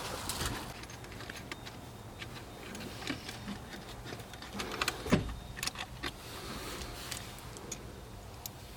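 Scattered light clicks and knocks of small hard objects being handled, with one louder knock about five seconds in.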